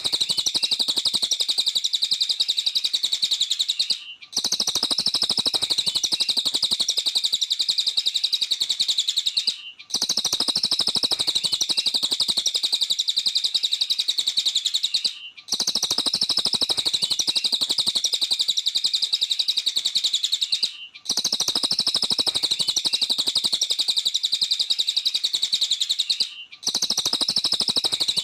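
Cililin songbird singing in full 'gacor' voice: a dense, rapid, high-pitched chattering song, cut by short silent breaks about every five and a half seconds, as in a looped recording.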